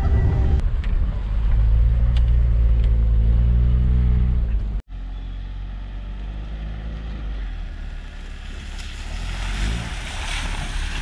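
A 1996 Holden Barina Swing hatchback's small four-cylinder engine running under load on a dirt track, heard loud from inside the cabin with its pitch climbing slightly. After a sudden cut about five seconds in, the same car is heard from outside, quieter, as it approaches. Tyre and water noise grows near the end as it reaches a muddy puddle.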